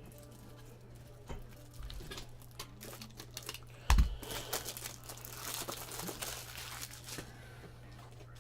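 Trading card pack wrapper crinkling as it is handled and torn open, with one sharp knock about four seconds in.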